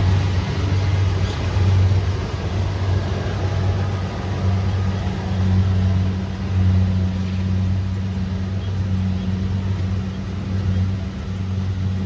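Kubota DC70 Pro combine harvester's diesel engine running steadily under working load, with a low hum over the clatter of the machine and its loudness gently rising and falling.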